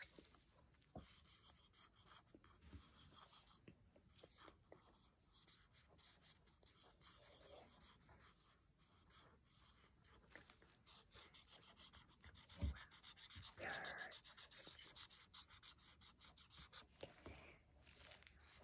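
Faint scratchy strokes of a liquid chalk marker's tip rubbing on black coloring paper, coloring in small quick movements. One louder thump about two-thirds through.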